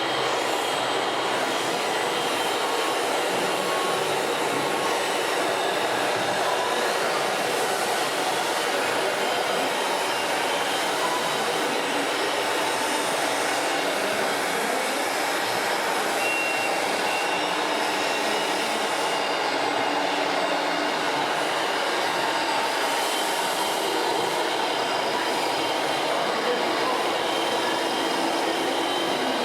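Steady whirring of RC model trucks and construction machines running: small electric motors and gearboxes with a few faint whining tones, at an even level throughout.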